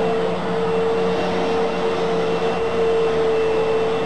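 Fantom Fury bagless upright vacuum cleaner running steadily on carpet: a constant motor whine over the rush of suction.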